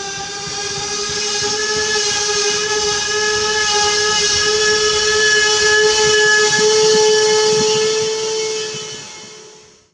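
Pesa SA134 diesel railcar braking as it pulls into the station: a steady high whine over a hiss, rising slightly in pitch and growing louder as it comes close, then fading away just before the end.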